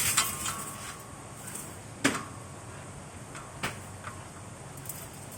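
A few sharp knocks from the egg conveyor chain and cage hardware as the chain is pulled, the loudest about two seconds in and a smaller one over a second later, over a faint steady hum.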